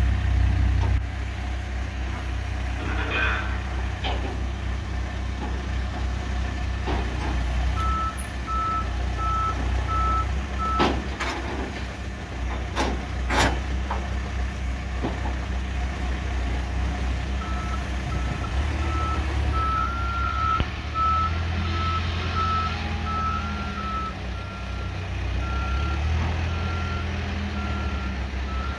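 New Holland B115B backhoe loader's diesel engine running steadily, with a reversing alarm beeping at an even pace while the machine backs up. The beeping starts about a quarter of the way in, pauses, and returns for the second half. A few sharp knocks come near the middle as the pallet forks work the load on the truck.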